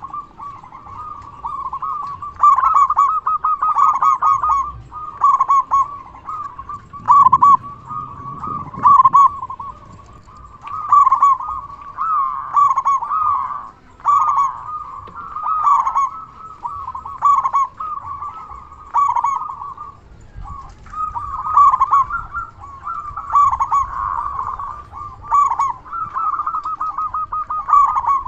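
Zebra dove (perkutut) of a local strain cooing loudly, repeating its bubbling, rapid-note song phrases one after another every second or two.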